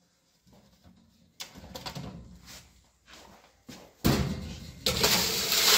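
Workshop handling noises: a few light knocks and rustles, then from about four seconds in a sudden, loud scraping, clattering noise.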